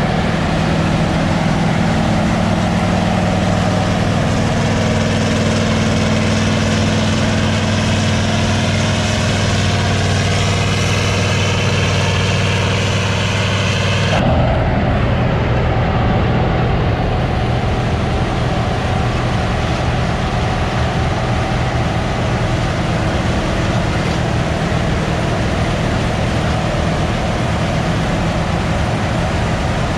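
Heavy diesel harvest machinery running steadily, a deep even engine drone. The sound changes abruptly about 14 seconds in to another, similar engine sound.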